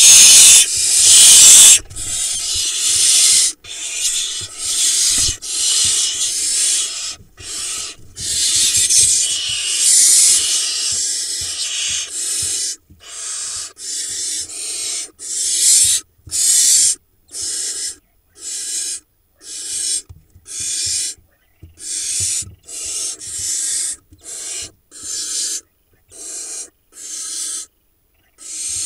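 Barn owl nestlings making harsh, rasping begging hisses, repeated over and over. They are loudest and most continuous in the first two seconds, then break into shorter hisses about one a second. This is the food-begging call of young barn owls.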